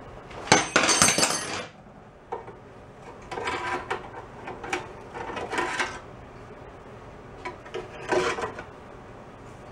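A steel pry bar scraping and clanking against the motorcycle's metal frame as it is worked into place. There is a loud ringing scrape about half a second in, a run of shorter scrapes and knocks in the middle, and one more scrape near the end.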